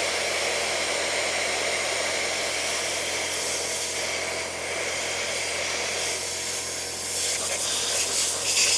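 Compressed air hissing steadily from an air blow gun, blowing dirt and debris out of the distributor with its cap off; the blast gets louder and rougher near the end.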